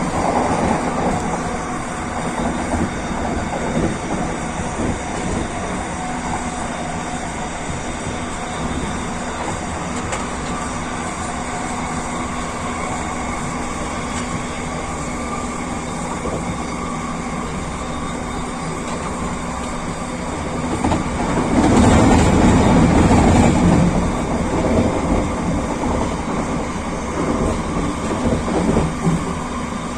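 SkyTrain rapid-transit train running along its guideway, a steady rumble of wheels and running gear. The noise swells louder and deeper for about three seconds past the middle, then settles back.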